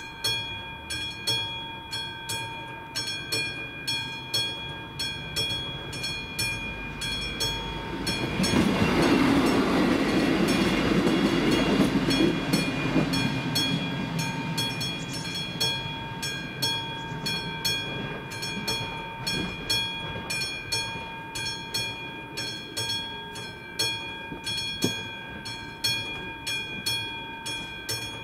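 Classic mechanical level-crossing warning bell ringing steadily at about three strokes a second. A rumbling train noise swells about a third of the way in and fades away a few seconds later.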